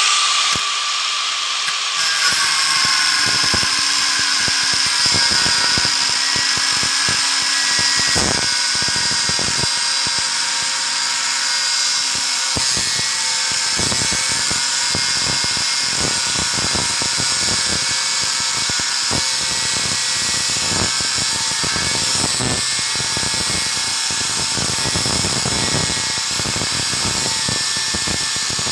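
Hitachi angle grinder running at speed with a steady high whine, its cutting disc slicing through the copper winding wire at the end of a tile-cutter motor armature, with irregular sharp clicks and scrapes as the disc bites into the copper.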